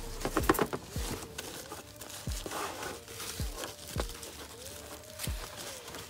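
Thin plastic bag and foam wrap crinkling in bursts as a car stereo head unit is pulled out of it. Behind it plays background music with a held, gliding synth tone and deep falling bass hits about once a second.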